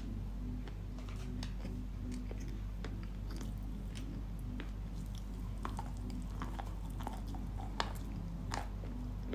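Dry Yampol chalk with a pink paste being crunched close to the microphone: sparse, sharp crackles and snaps a few times a second, louder and more frequent near the end, over a steady low hum.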